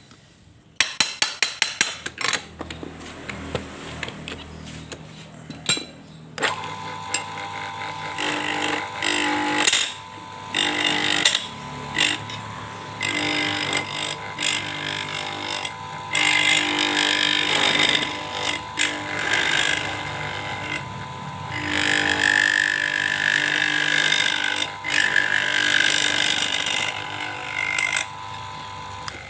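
A quick run of sharp knocks, then about six seconds in a lathe motor starts and runs with a steady whine. Over it come repeated bursts of scraping as a cutting tool works the spinning PVC pipe.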